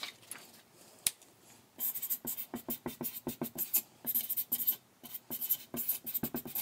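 Felt-tip marker writing capital letters on a sheet of paper in quick short strokes, with a short pause about five seconds in. A single sharp click comes about a second in.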